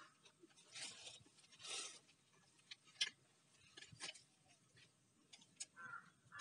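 Faint handling noise from an angle grinder and its parts: small clicks, taps and rustling, with one sharper click about three seconds in.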